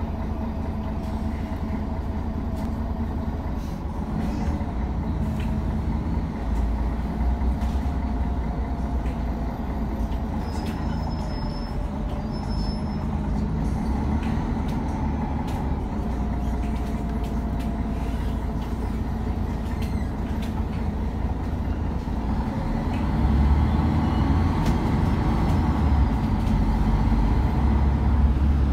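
Interior of a MAN A23 articulated city bus on the move: continuous engine and road rumble with faint sliding whines from the drivetrain, getting louder near the end.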